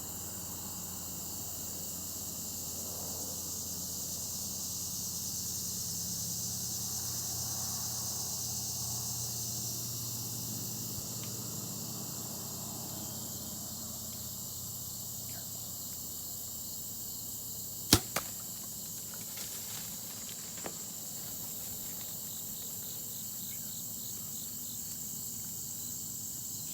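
A bow shot: one sharp crack of the bowstring release about two-thirds of the way through, followed a fifth of a second later by a second, smaller crack and a few faint clicks. Crickets and other insects chirr steadily throughout.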